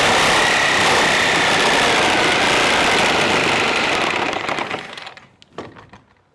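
Electric power saw running with a high, steady motor whine and cutting noise, then let off about four seconds in and winding down, followed by a few light knocks.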